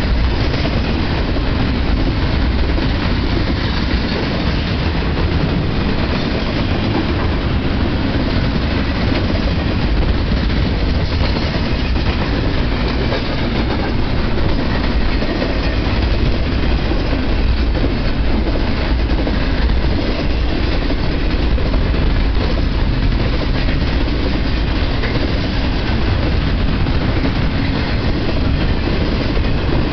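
Double-stack intermodal well cars of a freight train rolling past at speed: a loud, steady rumble of steel wheels on rail, heaviest in the deep bass, unbroken throughout.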